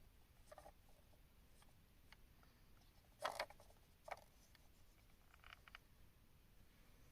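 Near silence with a few faint, short clicks and rustles, the loudest about three seconds in.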